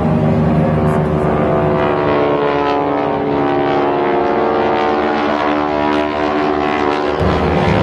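Two propeller-driven biplanes droning overhead, their piston engines giving a steady, pitched drone whose tones drift and cross each other as the aircraft move. The deep low part of the drone fades in the middle and comes back strongly near the end.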